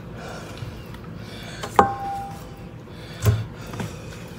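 Two knocks from handling kitchenware: a sharp clink that rings briefly with one clear tone about two seconds in, then a duller thump over a second later.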